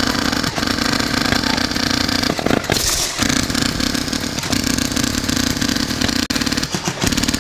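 Steady mechanical buzz like a motor running, with two short breaks, about two and a half seconds in and again near the end.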